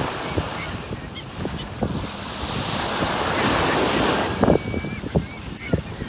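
Waves washing in with wind buffeting the microphone; a wave surges up into a broad wash about three to four seconds in, then falls back.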